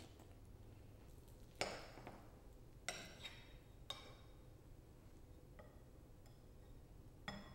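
A metal spoon clinking against ceramic bowls: about five light clinks spread out, the first one, a bit under two seconds in, the loudest, several with a brief high ring.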